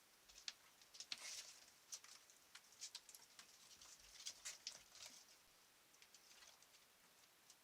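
Faint, irregular pattering and scratching of a small animal's feet moving about in a shed, recorded by a trail camera. The quick ticks come thickest in the first five seconds, then thin out.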